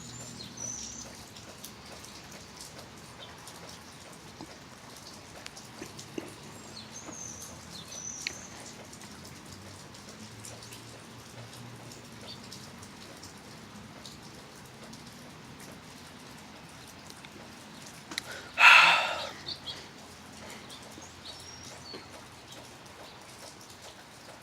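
Steady rain falling, with a few short, high bird chirps early on. About three-quarters of the way through there is one loud rush of noise lasting about a second.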